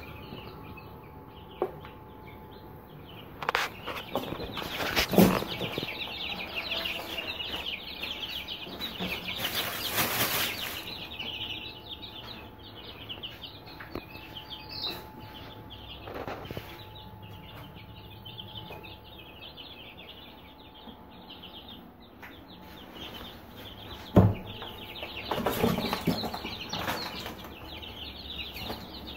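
A brood of newly hatched Aseel chicks peeping continuously in rapid high calls. Several loud knocks and rustles of handling cut in now and then.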